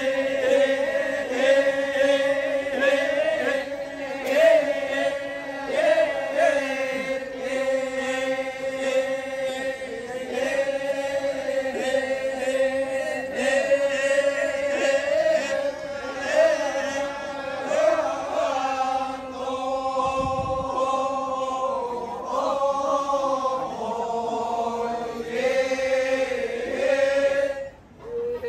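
Torajan badong funeral chant: a group of voices chanting together, holding a steady pitch with slow wavering rises and falls. The chant breaks off briefly just before the end.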